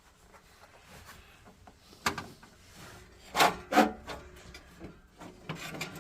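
Hand-work noises inside an opened boiler: a sharp knock about two seconds in, then two short, louder scraping rubs close together, and lighter scuffing near the end, as parts are handled and lined up with a screwdriver.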